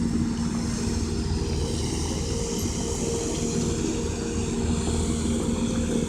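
Truck engine running steadily, a low drone with a constant hum.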